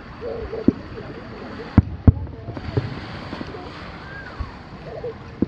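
Aerial fireworks shells bursting: about five sharp bangs, the two loudest close together in the middle.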